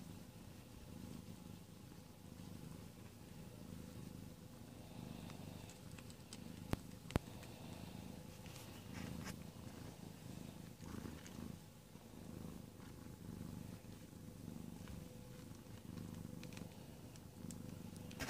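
Tuxedo mother cat purring steadily as she nurses her newborn kittens, a faint rhythmic rumble. Two sharp clicks about seven seconds in.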